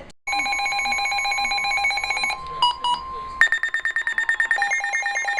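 Emergency Alert System tones opening a severe thunderstorm warning. About two seconds of rapid, buzzing multi-tone pulses come first, then a few short beeps, then from about three and a half seconds a steady, rapidly pulsing high alert tone.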